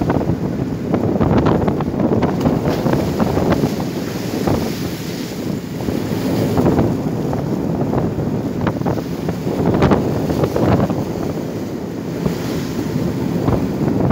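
Wind buffeting the microphone over the rush of waves breaking and churning along the hull of a steel workboat under way in choppy sea, with scattered brief splashes.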